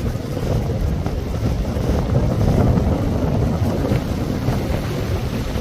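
Wind buffeting the microphone in a steady low rumble, over the wash of the sea.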